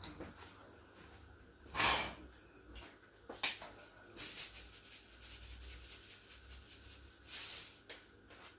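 Ground spice shaken from a shaker container over a frying pan: a run of quick rattling shakes in the middle, with a few short hissing bursts before and after.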